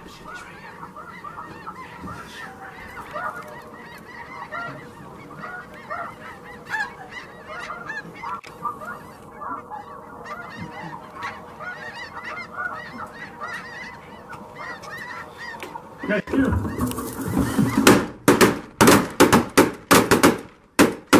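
A large flock of snow geese calling overhead, a steady din of many overlapping high yelps. About three-quarters of the way in, a volley of shotgun shots breaks out, many in quick succession over about five seconds, much louder than the geese.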